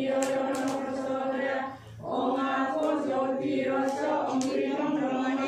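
A group of mostly women's voices chanting a devotional hymn in unison at a Brahma Dharma yagya fire, with long held notes and a short break for breath about two seconds in.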